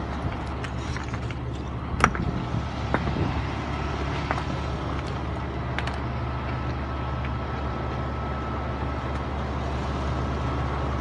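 Steady low engine hum, like a vehicle idling, under a few sharp knocks, the loudest about two seconds in; a faint steady high tone joins about halfway through.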